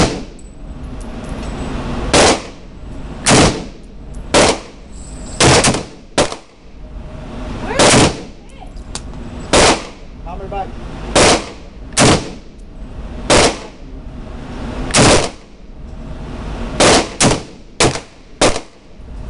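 Semi-automatic rifle shots from a DPMS Oracle AR-15 in 5.56x45/.223, fired singly at an uneven pace of about one every second or so, about fifteen in all, with a quicker run of shots near the end, inside an indoor range.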